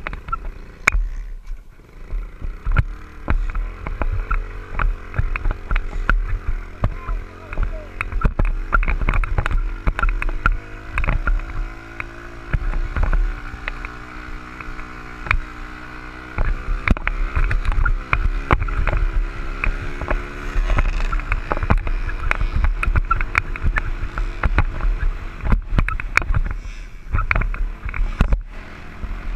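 Motocross dirt bike engine running under way, its pitch rising and falling gently with the throttle, mostly in the middle of the stretch. Heavy wind buffeting and crackle on the helmet-mounted microphone cover much of it.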